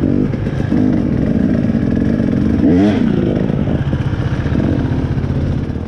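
Dirt bike engine running, with a quick rev up and back down about three seconds in.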